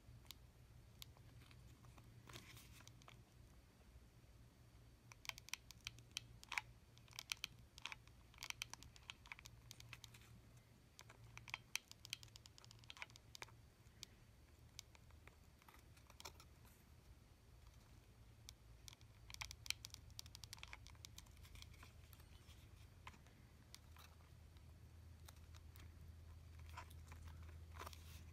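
Near silence with scattered faint clicks and light rustling from small parts, tools and fabric being handled at a workbench, over a low steady hum. The clicks come in clusters, from about five to thirteen seconds in and again around twenty seconds in.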